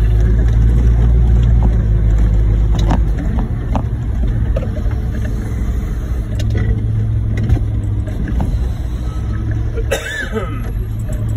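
Concrete mixer truck's diesel engine running with a steady low drone, with a few clicks and rattles over it.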